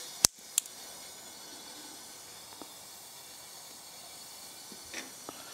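A pneumatic quick-connect coupler snaps onto the air fitting with a sharp click and a second lighter click. Then comes a steady faint hiss of compressed air at about 20 to 40 PSI feeding into the engine's cylinder, with a few faint ticks near the end.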